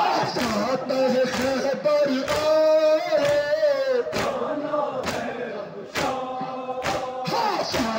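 Men chanting a nouha (Shia lament) together, a sung melody carried by many male voices, with sharp hand slaps on chests (matam) about once a second keeping the beat.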